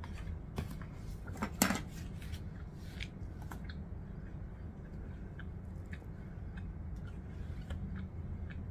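A person eating soup: a metal spoon clicking against a plastic takeaway container, with chewing and small mouth sounds, over a low steady hum. The loudest click comes about a second and a half in.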